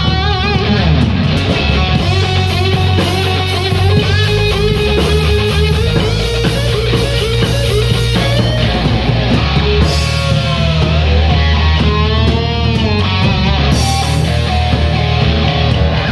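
Live rock band playing an instrumental passage: electric guitar over bass guitar and drums, with the guitar bending notes from about ten seconds in.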